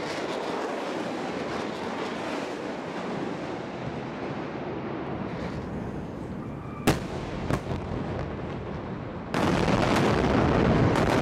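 Air-strike explosions: a continuous noisy rumble, a sharp bang about seven seconds in with a couple of smaller cracks after it, then a louder, longer blast starting about nine seconds in.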